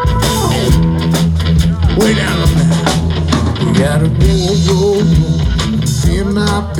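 A live rock band playing a song on electric guitar, bass guitar and drum kit, with steady drum beats throughout.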